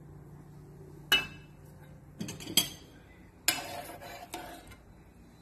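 Metal serving spoon and tongs clinking against a cooking pan and a glass baking dish while coconut-milk stew is spooned out. There are several sharp clinks with a short ring: one a little after a second in, two close together around the middle, and a cluster near the end.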